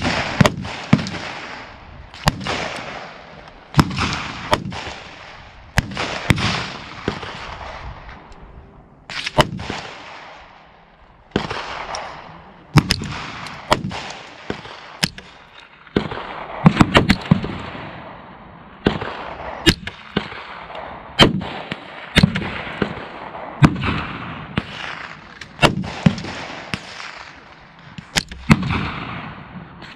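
Gunfire on an outdoor shooting range: irregular shots, about one a second, each with a sharp crack and a long echoing tail. Some shots are much louder than others, and a quick cluster comes a little past halfway.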